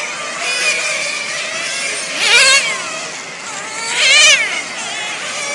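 Nitro-engined 1/10 radio-controlled touring cars running flat out past the microphone. Their high-pitched engine whine swells and then drops in pitch as each car goes by, loudest about two seconds in and again about four seconds in.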